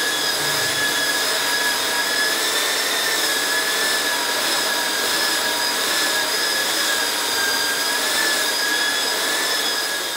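Electric belt sander running steadily while it sands a rough reclaimed wood plank: the grinding rush of the belt on the wood under a steady high whine from the motor.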